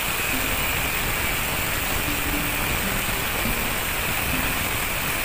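Angle grinder with a thin cut-off disc cutting into the end of a steel bar: a steady hissing grind with a thin high whine running through it.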